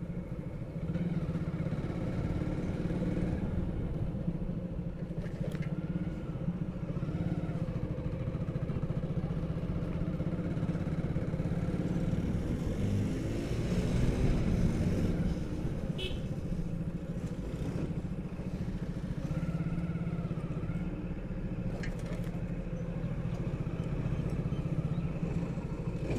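Motorcycle engine running steadily under way. About halfway through, its pitch shifts and it gets a little louder.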